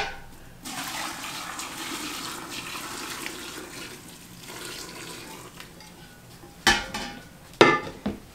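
Warm pickling syrup poured from a stainless steel stockpot into a large glass jar of pickles, a steady splashing trickle lasting about six seconds. Near the end the metal pot is set down with two loud knocks.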